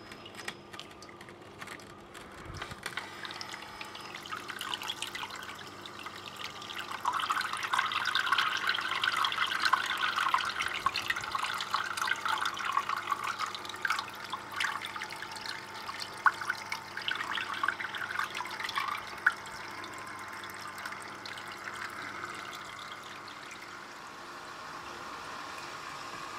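GEX aquarista Multi Auto Cleaner in cleaning mode: water trickles and splashes from its filter cup back into the aquarium, with bubbles popping at the surface. It gets louder and busier for a stretch in the middle, then settles to a softer trickle, over a faint steady hum.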